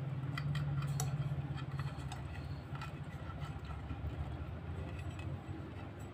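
Small irregular clicks and ticks of thin wires and the plastic lamp base being handled as the wires are twisted onto a desk lamp's switch terminals, over a steady low hum.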